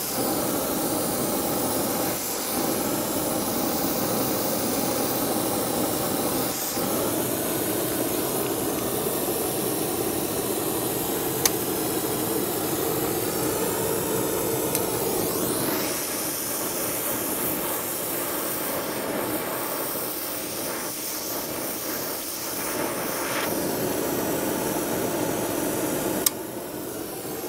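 Oxy-fuel torch flame hissing steadily while it heats a steel horn. There is one sharp click about eleven seconds in, and the hiss drops suddenly near the end.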